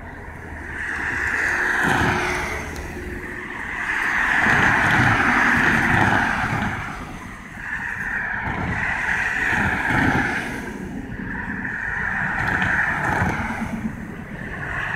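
Road cars passing one after another over the level crossing, each a swell of tyre and engine noise that rises and fades, about five in a row.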